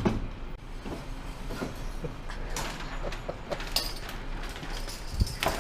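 Irregular sharp clicks and knocks, a few stronger ones about two and a half, three and a half and five and a half seconds in, over a steady low hum.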